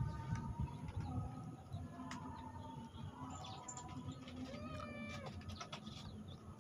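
A domestic cat meows once, about five seconds in, with a few light clicks around it.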